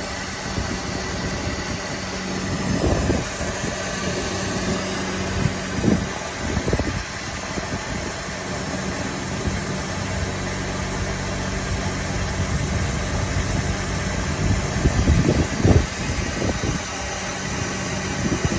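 A machine running steadily with a low hum, with a few short knocks and rattles of handling.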